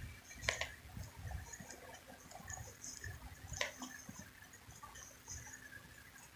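Quiet city street ambience with soft low thumps and two sharp clicks, one about half a second in and one a little past the middle.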